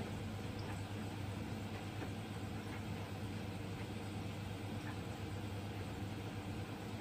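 Reef aquarium's water pumps and powerheads running with a steady low hum, over a faint even hiss of moving water.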